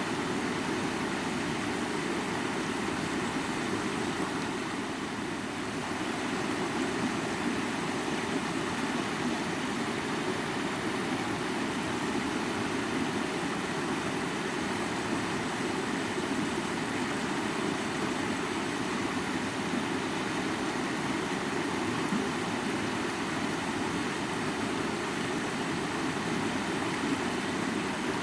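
Mountain river flowing: a steady, unbroken sound of running water.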